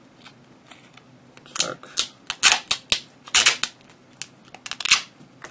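Black duct tape pulled off its roll in a series of short, loud ripping pulls as it is wound around a knife's steel handle.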